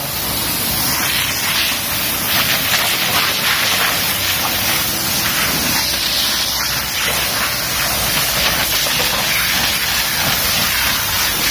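Pressure-washer water jet spraying onto a car floor mat, washing off the disinfectant and shampoo. It is a loud, steady hiss.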